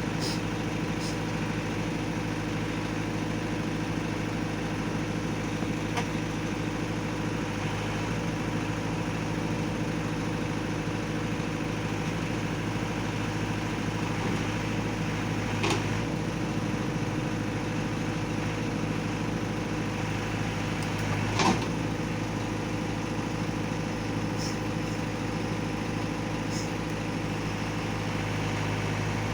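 Heavy vehicle engine idling steadily, with two sharp knocks, one about halfway through and a louder one a few seconds later.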